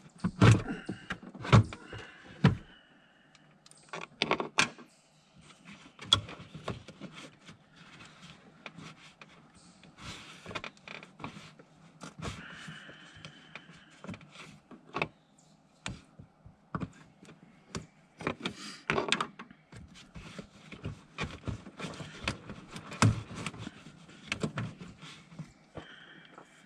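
Irregular knocks, clicks and rattles of hands and tools working the air intake and its hose clamps loose in a pickup truck's engine bay. The loudest knocks come in the first few seconds.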